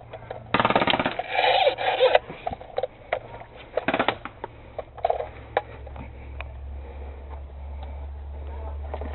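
Rubbing and rustling noise with scattered clicks. A loud, rough burst starts about half a second in and lasts over a second, and a shorter one comes about four seconds in.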